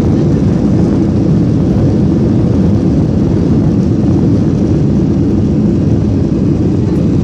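Steady low rumble of a jet airliner heard from inside the cabin as it rolls along the runway after landing: engine and wheel noise, with no clear change in pitch or level.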